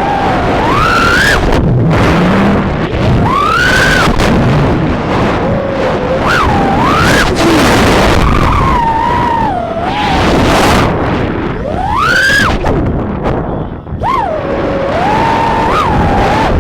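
Brushless motors of a 3-inch FPV quadcopter whining in flight over a steady rush of propeller and wind noise. The pitch swoops sharply up and down again and again with the throttle, with a brief drop in level near the end.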